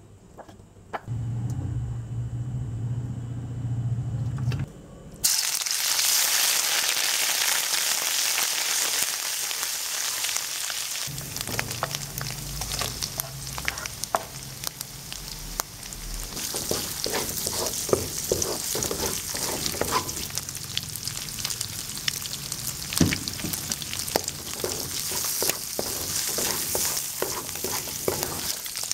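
Sliced chicken liver sizzling in hot oil in a wok; the sizzle starts suddenly about five seconds in and carries on steadily. From about halfway through, a wooden spatula stirs it, with many short scrapes and clacks against the wok.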